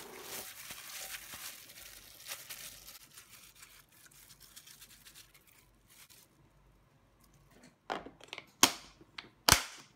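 Plastic food glove crinkling and squishing against sticky marinated pork in a glass container, with soft scraping. Then the clip-lock lid's latches snap shut: several sharp clicks in the last two seconds, two of them loud.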